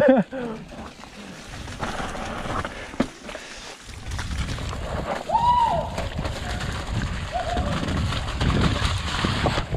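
Mountain bike descending a muddy dirt trail: tyres rolling and rattling over the ground, with wind rushing over the camera microphone, growing heavier about four seconds in as the bike picks up speed. A sharp knock comes about three seconds in, and a brief high tone about five and a half seconds in.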